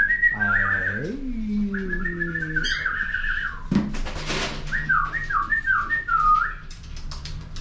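High whistling in short, wavering runs, in two spells with a pause in the middle. A lower pitched sound with a rising glide runs under the first spell.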